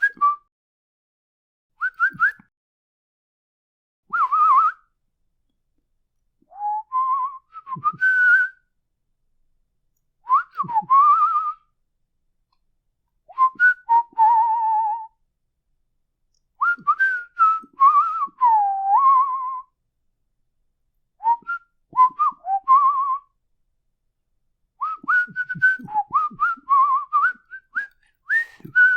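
A person whistling a series of short, varied phrases: upward and downward glides, warbles and quick trills, each phrase a second or two long with silent gaps between them.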